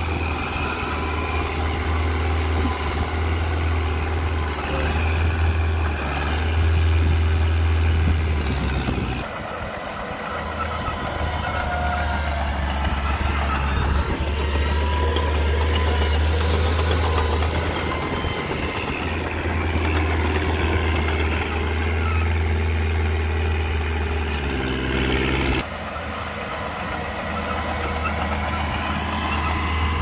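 Mitsubishi BD2J small crawler bulldozer's diesel engine running steadily under load as it pushes soil with its blade. The sound drops abruptly about 9 seconds in and again near 26 seconds.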